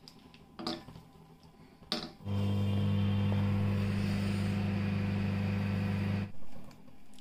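Convection microwave oven running with a loud steady electrical hum. The hum starts about two seconds in after a couple of clicks and cuts off sharply about four seconds later.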